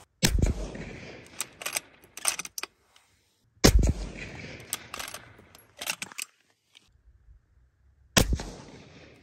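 SIG Sauer Cross bolt-action rifle firing three shots about four seconds apart, each shot trailing off in an echo. Short metallic clicks between the shots are the bolt being worked to chamber the next round.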